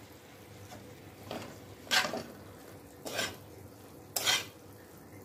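Spatula stirring vegetables and paneer in a wok on a freshly lit gas flame, scraping the pan in four short strokes roughly a second apart.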